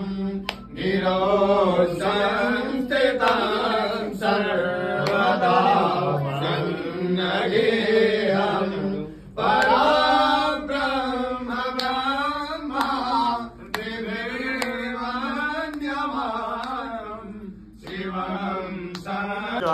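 Sanskrit mantras chanted in a long, wavering melodic recitation, broken by two short pauses for breath, over a steady low hum.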